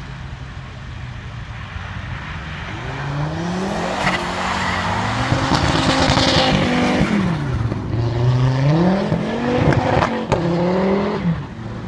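A white Audi saloon's engine revving hard as it drifts sideways through snow. The pitch climbs, drops about seven seconds in, then climbs again, and the tyres and spray rush loudest as it passes about six seconds in. A few sharp pops come near the end.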